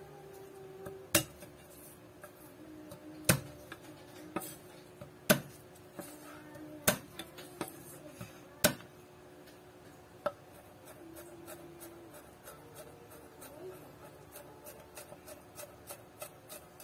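Garlic cloves smashed with the flat of a wide kitchen knife on a wooden cutting board: six sharp whacks, one every one and a half to two seconds. Quick, light chopping taps follow near the end as the crushed garlic is minced.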